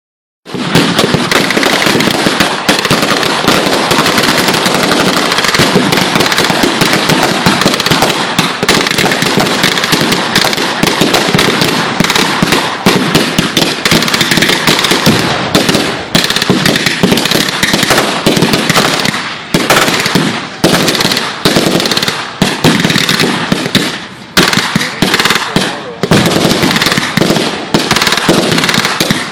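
Loud, dense crackling of rapid bangs in a nearly unbroken run, with short gaps and dips appearing more often in the second half.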